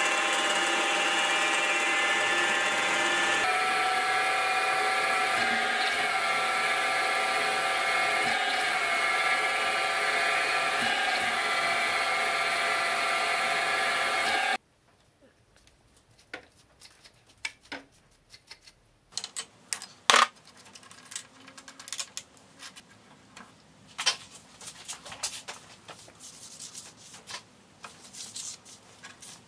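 Benchtop milling machine running steadily with a motor whine while drilling a hole in a knurled metal part, the tones shifting about three and a half seconds in. It cuts off suddenly about halfway through, leaving faint scattered clicks and knocks of tools and parts handled on the mill table.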